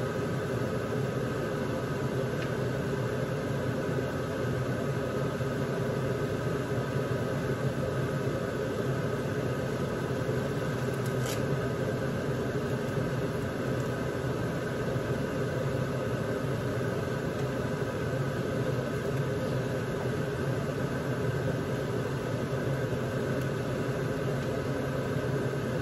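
Steady hum of a running electric motor with a few faint whining tones, unchanging throughout, with one brief click about eleven seconds in.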